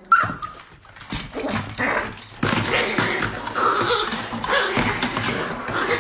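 A dog whimpering and barking.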